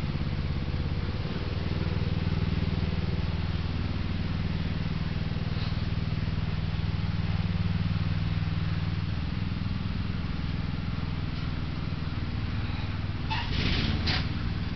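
Steady low drone of a running engine, with a few short scuffing noises near the end.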